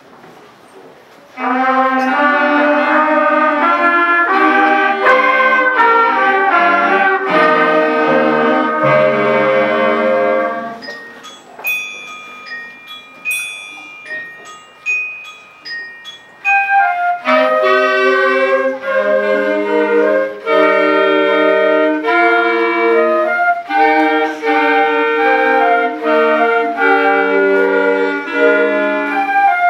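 A school concert band of flutes, clarinets, saxophones, trumpets and trombones plays a piece, coming in together about a second in. Midway the band drops out for a few seconds of sparse, high bell-like notes, then the full band comes back in.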